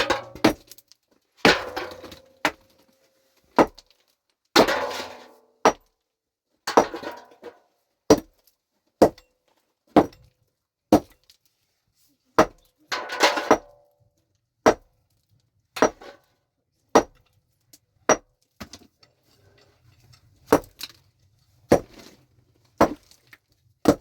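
Pickaxe striking rock about once a second, each blow a sharp hit, some followed by a short gritty scrape of stone breaking away.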